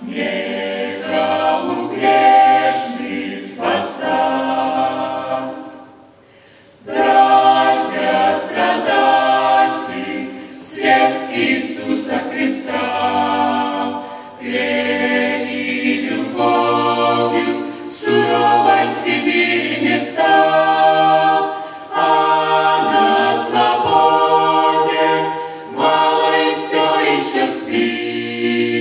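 Small mixed-voice ensemble, women and men in harmony, singing a Russian-language gospel song a cappella into handheld microphones. The singing breaks off briefly about six seconds in, then carries on.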